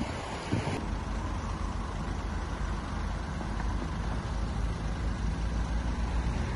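Steady low rumble of vehicle engines with road traffic noise.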